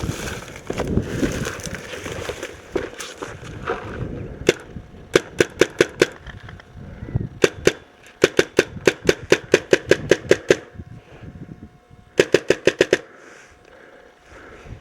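Rustling for a few seconds, then a paintball marker firing sharp shots in strings: a single shot, short bursts, a long run at about five shots a second, and a last quick burst near the end.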